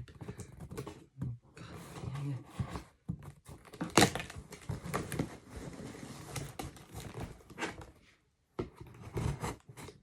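Packing tape being cut and pulled on a cardboard box: irregular scraping, crinkling, tearing and knocks, with one sharp knock about four seconds in.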